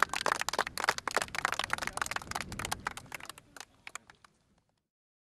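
A small group clapping by hand: irregular, separate claps that thin out and stop about four seconds in.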